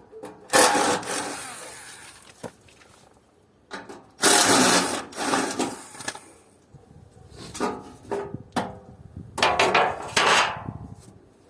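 Air-conditioner casing being pried and pulled apart by hand: four loud scraping, rubbing bursts of panel against panel, each about a second long.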